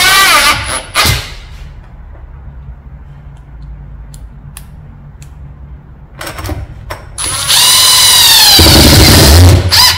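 Cordless drill-driver driving a screw, its motor whining and stopping about half a second in. After a few light clicks it whines again for about two seconds near the end.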